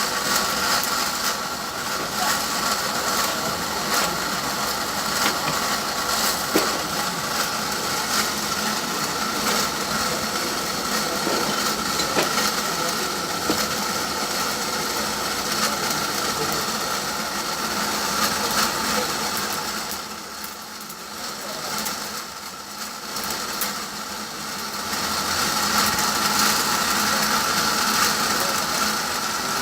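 A motor-driven workshop machine running steadily with a whine, with scattered light knocks and clicks; it drops off briefly after about twenty seconds, then picks up again.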